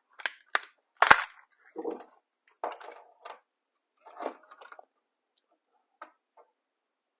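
Small plastic clicks and scrapes from handling and unscrewing a small inline lamp cord switch housing, with one sharp click about a second in and a few fainter ticks later.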